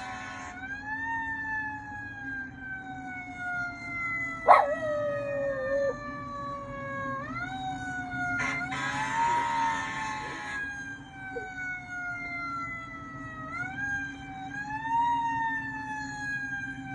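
A wailing siren that rises quickly and then falls slowly in pitch, over and over, with a dog howling along to it. The dog gives a sharp cry with a wavering tone about four seconds in, and a rougher howl around nine to ten seconds in.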